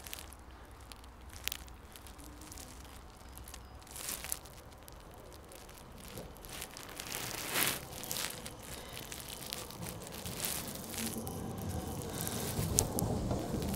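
Siemens Combino tram approaching on its rails, a low rumble that builds from about ten seconds in as it draws close and passes. Scattered crackles and clicks on the microphone throughout.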